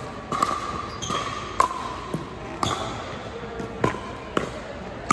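Pickleball rally: the hollow plastic ball is struck back and forth with paddles and bounces on the hardwood court, making a sharp pock about every half second that rings briefly in the large gym.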